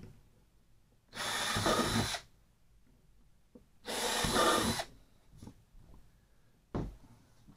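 Cordless drill driving screws into a kayak's plastic hatch rim: two short runs of about a second each, a couple of seconds apart, then a short knock near the end.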